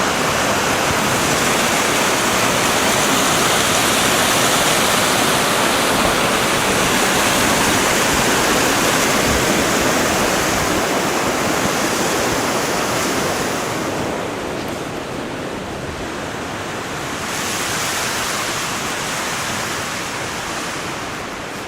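Mountain creek rushing full with spring snowmelt: a steady, loud water noise that eases about two-thirds of the way through, swells again, and fades near the end.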